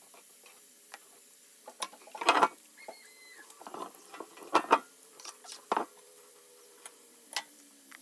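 Scattered knocks, taps and scraping of a wooden cutting board being cleared, lifted and set down against a stainless-steel sink, the loudest knocks about two, four and a half and six seconds in.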